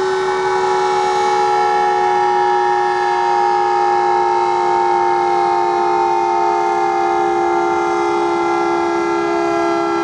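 Electro-mechanical warning siren (Broadmoor's Siren A) sounding a loud, steady two-note chord during its test, drifting slowly down in pitch.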